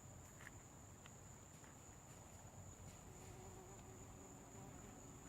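Faint buzzing of a bee at a loofah flower, growing a little stronger after the middle, over a steady high-pitched tone.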